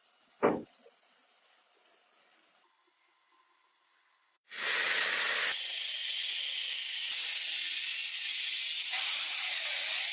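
A short knock, then a few seconds later a loud steady hiss that cuts off abruptly.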